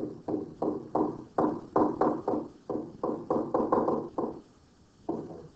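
Pen stylus tapping on a touchscreen while handwriting: a quick run of short, sharp knocks, about three or four a second, with a brief pause near the end.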